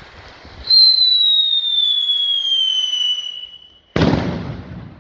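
A whistling firework, probably a whistler with a report: a shrill whistle that slowly falls in pitch for nearly three seconds, then a single sharp bang about four seconds in.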